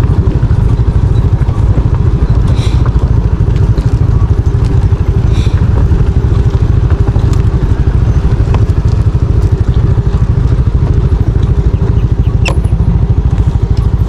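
Motor scooter engine running steadily at low speed on a rocky dirt track, a loud low rumble with a fast pulse and a faint steady whine. One sharp knock near the end.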